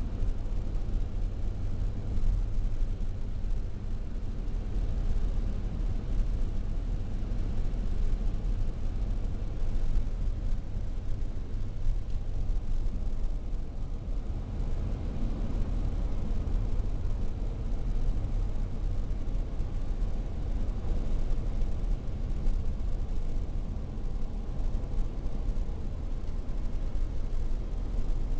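Car driving along a highway, heard from inside the cabin: a steady low rumble of engine and tyre noise.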